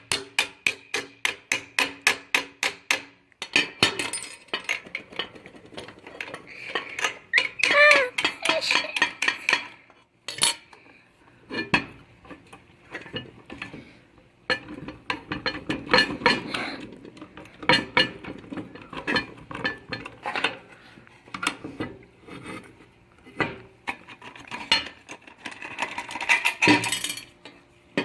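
Metal tools and scooter parts clinking, knocking and rattling during disassembly. It opens with a quick run of even clicks, about five a second, for about three seconds, then irregular knocks and clatter, with a short squeak about eight seconds in.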